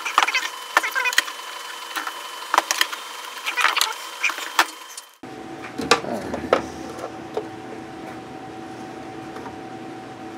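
Knocks, clicks and rattles of a plastic ultrasonic cleaner housing being handled and turned over. About five seconds in, a steady hum comes in underneath.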